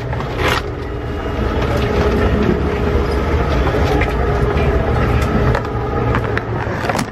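Steady low mechanical rumble with a faint hum and scattered clicks and rattles.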